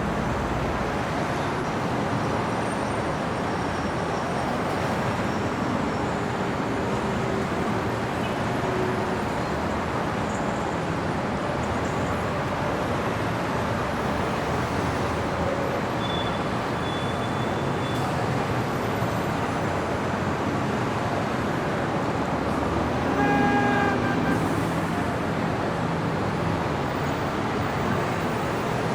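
Steady city street traffic: a continuous wash of car engines and tyres. Late on, a car horn sounds once, a single short honk that stands out above the traffic.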